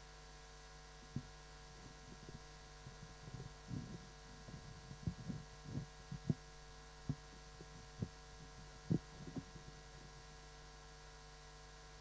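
Faint steady electrical hum, with about ten soft, irregular low thumps between about one and nine and a half seconds in.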